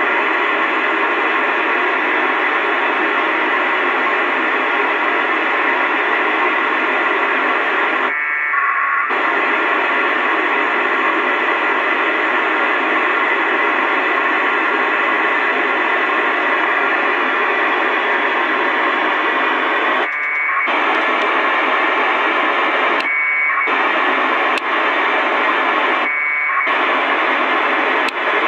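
FM radio receiver on the ISS APRS frequency, 145.825 MHz, giving a steady loud hiss of noise. The hiss is broken four times by short bursts of packet-data tones, which are APRS packets relayed through the ISS.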